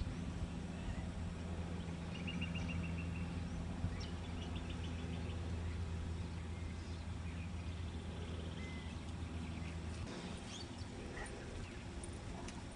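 Outdoor ambience: a steady low hum, with a few short, rapid chirping trills.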